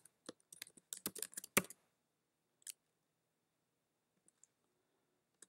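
Typing on a computer keyboard: a quick run of keystrokes in the first couple of seconds, a single key about a second later, then two faint clicks.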